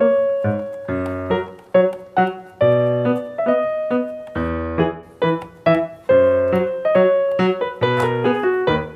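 Background keyboard music: a quick melody of struck notes that ring and fade, over low bass notes.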